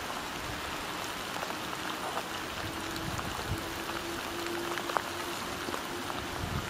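Steady rain falling, an even hiss with a few sharp drop ticks, the loudest about five seconds in.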